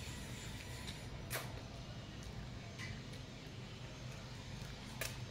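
Quiet eating sounds: a few sharp clicks of a meal being eaten by hand, the clearest a little more than a second in and another near the end, over a steady low hum.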